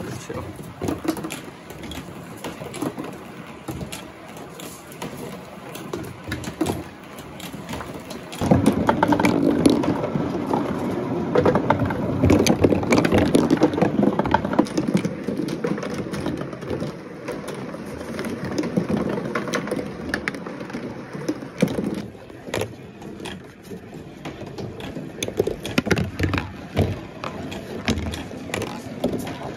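Glass marbles rolling through a cardboard marble run, with a rumbling roll around the funnels and many small clicks and knocks against the cardboard. The rolling is louder for a stretch in the middle.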